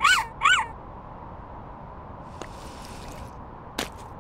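Cartoon baby seal's voice: two quick, high squeaks at the start, each rising and falling in pitch. A single short kissing smack near the end.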